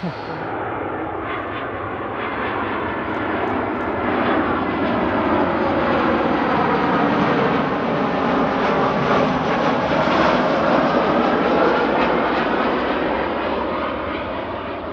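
Brussels Airlines jet airliner passing close by. Its engine noise swells to a peak about two-thirds of the way through, then begins to fade, with a sweeping shift in tone as it goes by.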